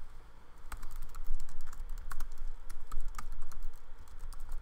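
Typing on a laptop keyboard: a run of irregular key clicks.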